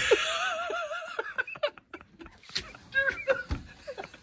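People laughing: a high, wavering laugh for about the first second, then a few short laughs or voice sounds later on, with a dull thump about three and a half seconds in.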